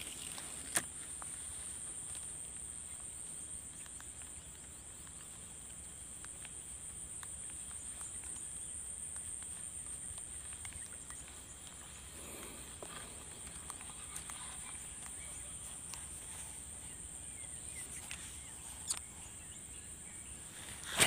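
Steady high-pitched insect chorus, with a few sharp clicks about a second in and near the end.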